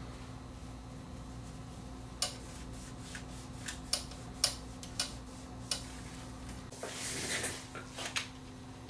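Light clicks and taps from a CD player's plastic front panel and display glass being handled and cleaned, about half a dozen scattered through, then a short wiping rub toward the end followed by two more clicks. A steady low hum runs underneath.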